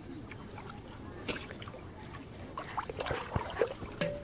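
Shallow floodwater sloshing and splashing as a person wades and lifts a dripping fishing net out of it. There is one sharp splash about a second in and a busier run of splashes and knocks in the second half.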